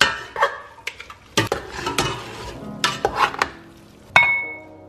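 Metal tongs and a ladle tossing linguine in sauce inside a stainless steel pot, clattering and scraping irregularly against the pot. Near the end comes one sharp clank that rings briefly.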